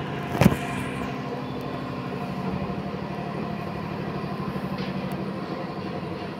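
A steady machine hum with a fast, even pulse, and a sharp click about half a second in.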